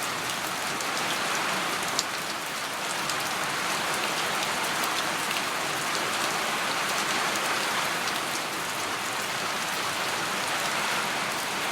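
Heavy rain falling steadily: a dense, even hiss with scattered drip ticks, and one sharp tap about two seconds in.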